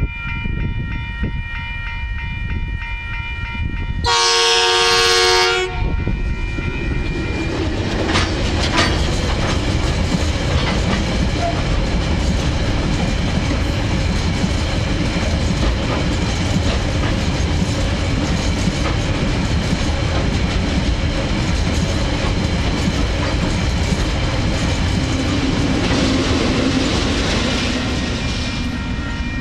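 TasRail locomotive DV1's new multi-tone horn sounds one blast of about a second and a half, about four seconds in, over steady tones from the level-crossing alarm. Then the locomotive and a long string of cement hopper wagons roll past, wheels clattering over the rail, until the noise drops away just before the end.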